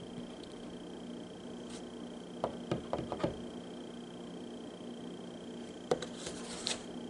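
Hands tapping and handling containers on a tabletop: a quick run of five or six light taps about two and a half seconds in, then a single sharp tap near six seconds followed by a short scratchy rustle.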